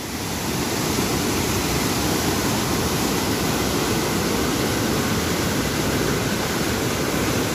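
River water rushing and churning white as it pours through the open gates of a barrage, a steady rushing noise.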